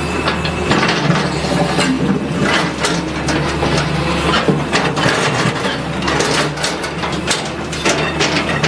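Excavator engine running steadily while its steel bucket scrapes and shoves broken concrete chunks across a paved surface, with irregular clattering and knocks of rubble.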